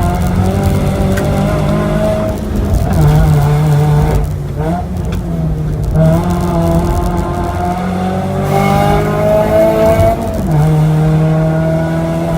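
Mazda 3's four-cylinder engine pulling hard up a hill-climb course, its pitch climbing under acceleration. It drops sharply about four seconds in and again near ten seconds, then climbs again.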